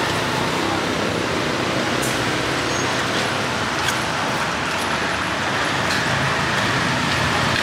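Steady street traffic noise, with a few light clicks of a metal spoon against a clay mortar as papaya salad is tossed.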